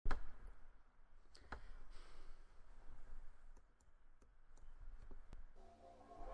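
A louder click at the very start, then faint scattered clicks, about ten of them, over a low steady rumble.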